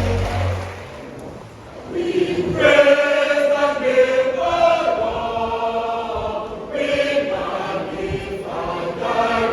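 Junior choir singing: a held chord fades out at the start, then after a short lull the choir comes in with a new sung phrase about two seconds in and carries on.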